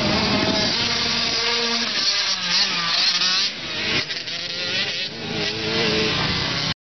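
Dirt bike engine revving, its pitch rising and falling with the throttle, over a rushing noise; the sound cuts off suddenly near the end.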